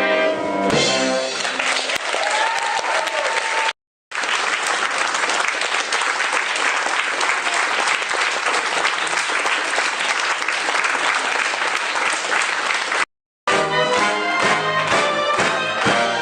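Theatre audience applauding after a sung operetta number with orchestra ends. Two short dead-silent gaps break the applause, and instrumental music with a steady beat starts near the end.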